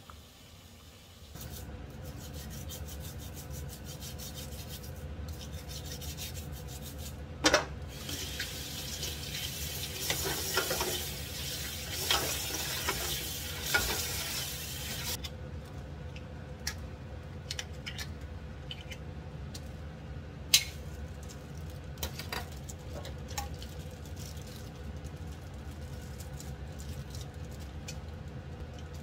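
Abalone being scrubbed with a brush in a stainless steel bowl under a running tap: a scratchy rubbing with water splashing for several seconds. After that come scattered sharp clicks and knocks against the steel bowl as the abalone are handled and cut with kitchen scissors.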